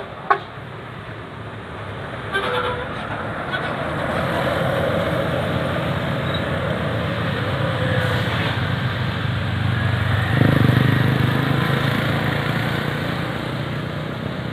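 A large bus driving past close by, its engine hum and road noise building to a peak about ten seconds in and then easing off. A few short horn toots sound in the first three seconds.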